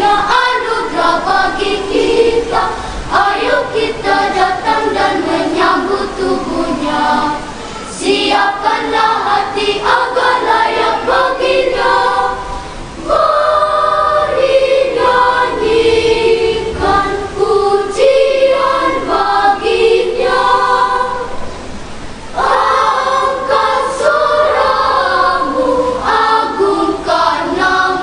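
Children's choir singing in phrases, with brief pauses for breath about 8, 13 and 22 seconds in.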